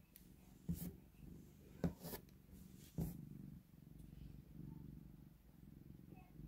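Long-haired black cat purring steadily and softly. A few sharp clicks cut in about one, two and three seconds in.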